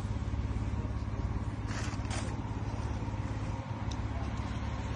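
Steady low rumble, with two short scraping or rushing noises about two seconds in.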